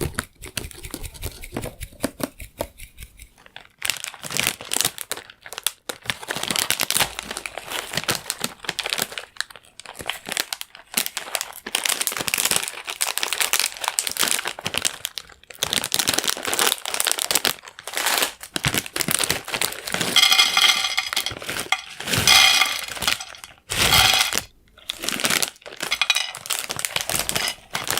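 Close-miked crunching and crackling of dry croutons being eaten, in dense irregular bursts with short gaps, quieter for the first few seconds.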